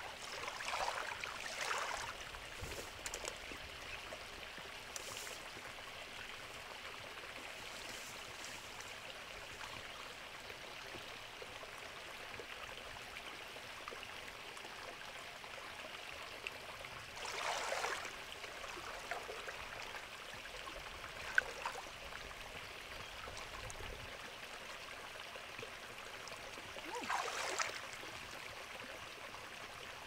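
Shallow water sloshing and splashing as a person wades and feels about in the water by hand, with three short bursts of splashing: one near the start, one about halfway through and one near the end. Between them a steady faint hiss.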